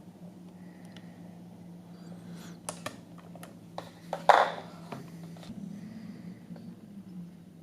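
Light clicks and taps of small parts being handled, with one louder knock and scrape about four and a half seconds in, over a steady low hum.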